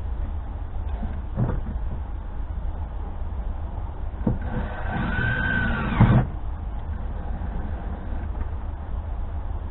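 Cordless drill driving a screw into sheet metal for about two seconds, its motor whine rising then falling, ending with a thump; a couple of light knocks come before it.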